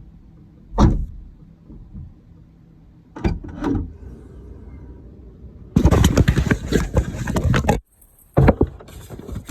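Clunking from the rear left of a Dodge Challenger, whose source the owner has not found. One sharp clunk about a second in, two more about half a second apart around three seconds in, then about two seconds of dense rattling knocks, and another sharp clunk near the end.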